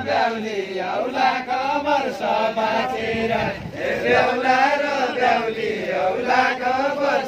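A group of voices singing a Bajureli deuda, the Far-Western Nepali folk song, together as a continuous chant with no instruments.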